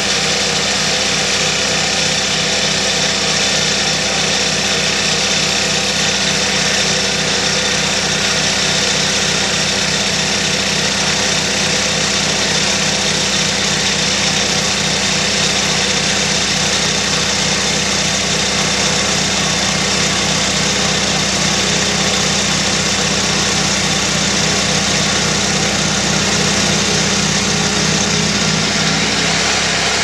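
1977 Wheel Horse C-120 garden tractor's single-cylinder Kohler engine running steadily under load with an even beat, driving a front-mounted snowblower that is throwing snow.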